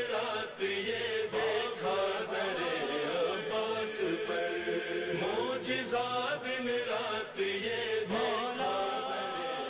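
Male voices chanting the refrain of an Urdu manqabat, a devotional song, in a wavering melody.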